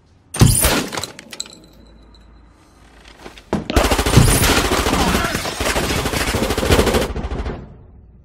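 Gunfire: a few loud shots about half a second in, then after a pause a sustained burst of rapid automatic fire lasting about four seconds.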